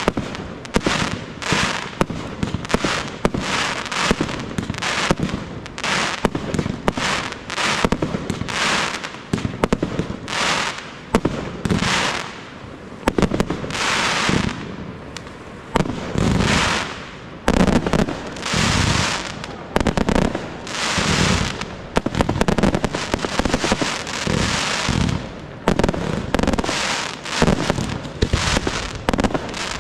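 Professional fireworks display: a rapid, continuous run of aerial shells bursting with sharp bangs. From about twelve seconds in, several longer bursts each last about a second, as glittering shells break in the sky.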